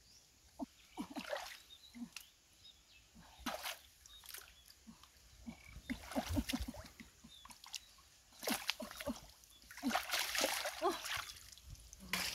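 Hands splashing and sloshing in a shallow, muddy stream pool while groping for catfish: irregular splashes and drips, busiest about six seconds in and again over the last few seconds.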